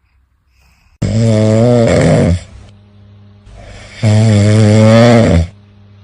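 A sleeping pet snoring loudly: two long snores about three seconds apart, each lasting roughly a second and a half.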